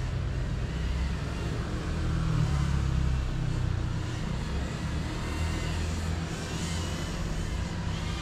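Low rumble of a passing motor vehicle, swelling for a couple of seconds early on and then easing off. Over it, near the end, a faint whine rises and falls in pitch: the FPV drone's motors in flight.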